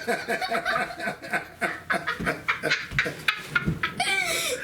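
Laughter in quick repeated bursts, about four or five a second, with a short high-pitched voice near the end.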